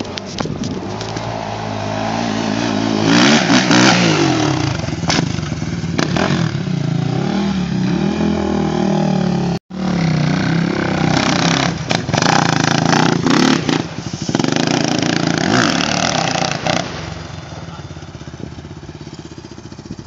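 Suzuki LTR 450 sport quad's single-cylinder four-stroke engine revving up and down as it is ridden hard, its pitch rising and falling with the throttle. The sound breaks off for an instant about ten seconds in, then carries on, and is quieter over the last few seconds.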